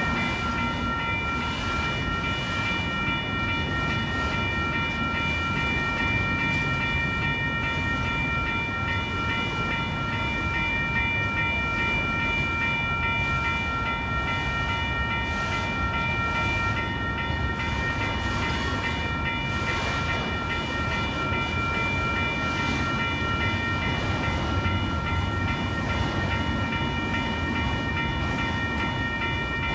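Long autorack freight train rolling through a grade crossing, its cars rumbling and clattering on the rails, while the crossing bells ring continuously: a WCH electronic bell and Safetran mechanical bells.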